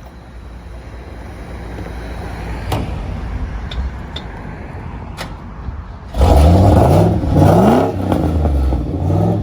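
Holden VP Commodore's 5-litre V8 running at idle, then revved twice about six seconds in, the pitch sweeping up with each blip before it settles back to a steady idle.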